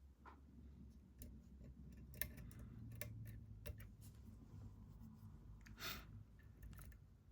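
Faint, irregular small clicks and scrapes of a lock pick working the pins inside a lock's keyway under tension.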